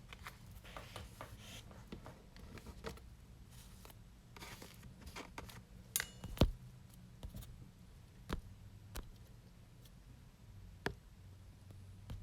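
Trading cards being handled and moved around on a table: scattered light taps and clicks with a few soft rustles, the sharpest tap about six seconds in, over a low steady hum.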